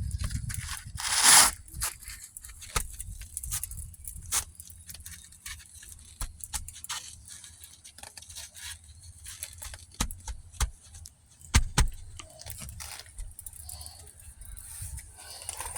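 Asphalt roof shingles being handled and worked under lifted tabs: scattered scrapes, crackles and light taps, with a louder rasp about a second and a half in.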